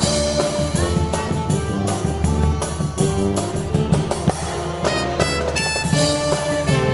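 Marching brass band playing an upbeat tune: brass and woodwinds over a steady drum beat.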